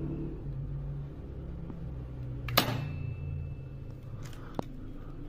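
A single sharp shot from a small rifle about two and a half seconds in, followed by a brief high ringing; a fainter click comes about two seconds later, over a low steady hum.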